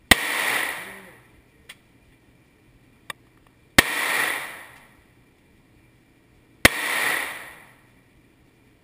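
Three gunshots in an indoor shooting range booth, about three seconds apart. Each is followed by a hissing, echoing tail of about a second and a half. Two faint clicks fall between the first two shots.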